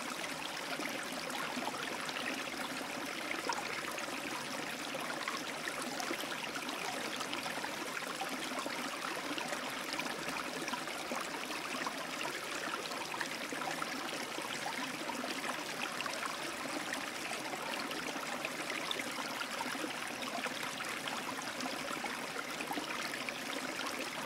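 Aquarium filter's return water trickling and splashing steadily into the tank, with a fine crackle of small bubbles.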